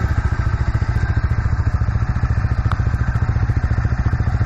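Single-cylinder motorcycle engine idling, a steady, even thumping beat.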